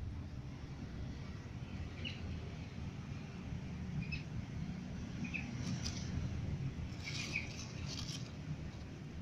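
Very young kitten giving a few short, high-pitched squeaky mews, spread out, with a cluster about seven to eight seconds in, over a steady low rumble.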